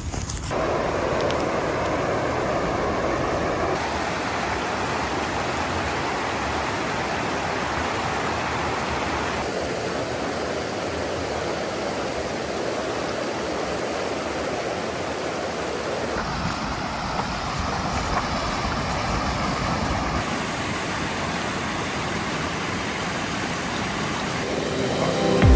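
Rushing water of a river running high after a typhoon, a steady noise heard in several shots cut one after another, the sound changing abruptly at each cut.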